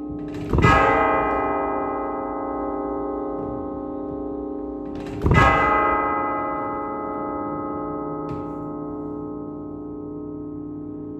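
Two strokes on a set of 1849 church tubular bells, the second about four and a half seconds after the first. Each rings on with many overtones and slowly dies away.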